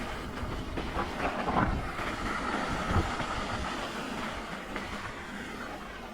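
Mountain bike rolling fast down a dirt trail: tyres crunching over the ground, with the bike rattling and clattering throughout. There are two sharp knocks, the louder about three seconds in, and a faint whine for a couple of seconds midway.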